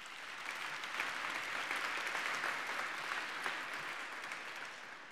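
Audience applauding, building over the first second or two and slowly dying away toward the end.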